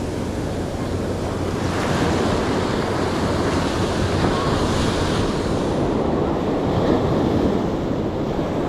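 Ocean surf breaking and washing up a sandy beach, with wind on the microphone. A wave swells up about two seconds in and its rushing wash dies back a few seconds later.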